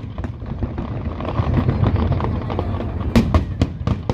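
Fireworks display: a continuous low rumble of shell bursts, then four sharp cracks in quick succession about three seconds in.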